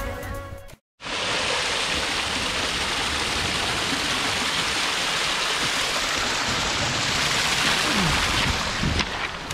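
Small waterfall splashing down a rock face, a steady rushing of water that starts about a second in.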